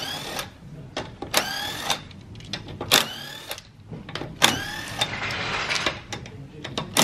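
Cordless impact wrench spinning the loosened wheel nuts off a car's wheel: four short whirring bursts about a second and a half apart, each rising in pitch, then a longer rattling run near the end.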